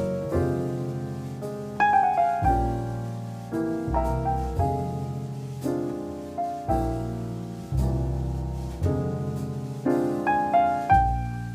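Jazz piano playing a slow ballad in full chords, each struck and left to ring and fade, with a new chord every second or two and deep bass notes beneath.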